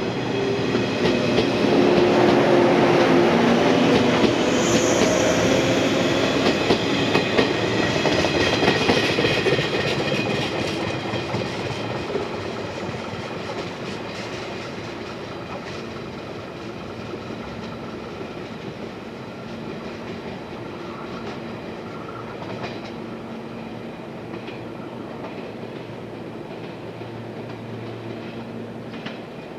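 Electric multiple unit train pulling away: wheels clicking over rail joints and motor tones rising in pitch as it picks up speed. It is loudest in the first few seconds and fades steadily as it recedes.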